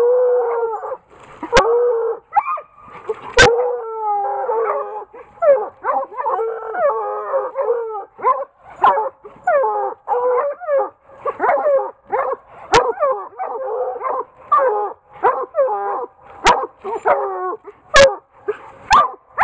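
A pack of four Redtick and Bluetick coonhounds baying treed at a caged raccoon up a pine tree, their voices overlapping. Long drawn-out howls in the first few seconds give way to a fast run of short chop barks.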